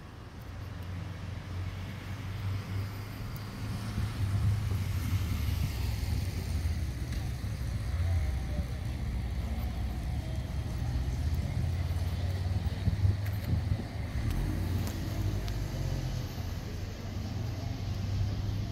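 Outdoor street ambience: a steady low rumble with road traffic passing, louder from about four seconds in.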